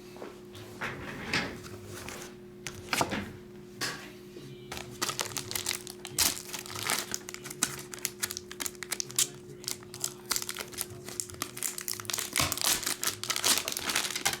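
Plastic packaging and hard plastic graded-card slabs being handled: scattered clicks and crinkles at first, then a dense run of clicking and crackling from about five seconds in.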